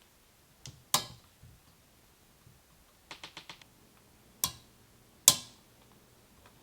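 Sharp clicks and knocks of computer parts being handled and fitted together: two knocks about a second in, a quick run of five small clicks around the middle, then two louder knocks near the end, the last with a short ringing tail.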